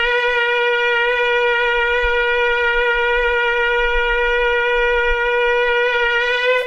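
Shofar (ram's horn) blown in one long, steady, loud note that rises slightly in pitch just before it stops near the end.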